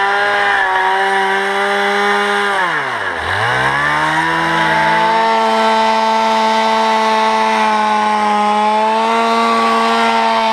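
Petrol chainsaw running at high revs while cutting up wooden slabs; about three seconds in its revs drop sharply and climb back up, then it holds steady.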